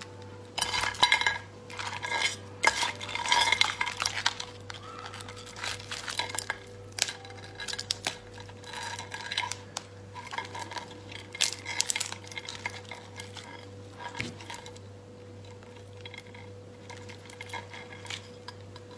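Langoustine shells being cracked and peeled apart by hand over an enamel tray: crisp crackles, clicks and snaps, dense for the first few seconds and then more scattered. A faint steady hum runs underneath.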